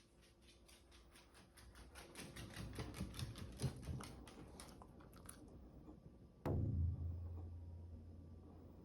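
New washing machine running: an even, fast clicking, about five a second, for the first five seconds, then a low hum that starts abruptly about six and a half seconds in and slowly fades. These are its normal operating sounds, though unfamiliar enough to alarm a dog.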